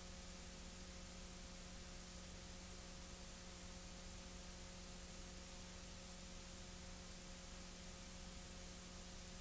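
Faint steady hiss with a low, unchanging electrical hum and no other sound: the background noise of a transfer of silent archival film.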